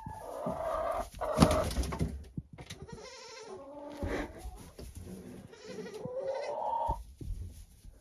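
Goats bleating, a newborn kid and its mother, with about four wavering calls over several seconds. There are light knocks and rustling in between.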